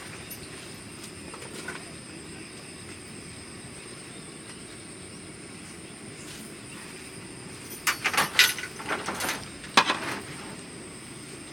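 A steady background hiss with a cluster of sharp clattering knocks about eight to ten seconds in.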